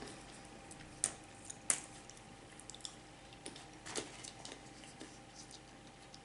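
Faint eating sounds: a few soft, short clicks scattered a second or two apart over a steady low hum.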